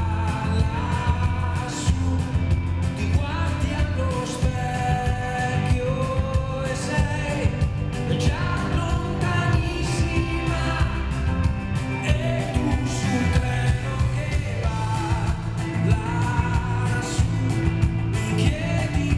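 Live rock band playing: a male lead singer over electric guitar and drums.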